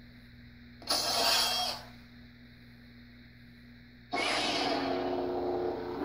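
Sound board of a Vader's Vault lightsaber playing its sound font: a short burst of effect sound about a second in, then the blade igniting a little after four seconds in with a sudden rush that settles into a steady electric hum.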